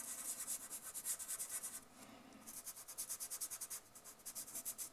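Fingertip rubbing soft dry pastel into a paper card to blend the colour: faint, fast back-and-forth scratchy rubbing in two runs, with a short pause between them.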